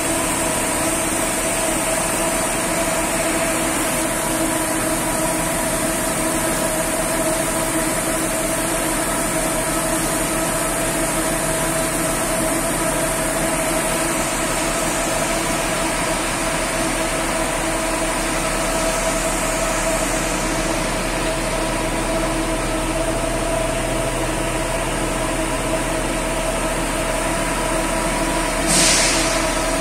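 FIRATLINE Compact 5FRC tandem automatic bus wash running, with a bus moving slowly through it: a steady mechanical drone with a constant whine. A short hiss comes about a second before the end.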